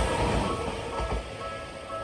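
A Tokyu Oimachi Line electric train running past and fading away, with the level crossing's electronic warning bell sounding in repeated short tones.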